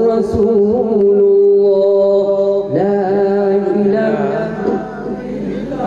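A man's voice chanting a naat unaccompanied, holding long drawn-out notes with no words. About three seconds in the pitch steps up to a new held note, and the line wavers in ornaments near the end.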